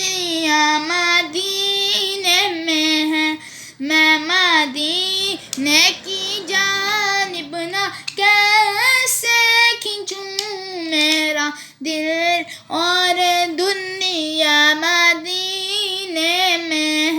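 A high solo voice singing an Urdu naat unaccompanied, in long held notes that bend and ornament between short breaths.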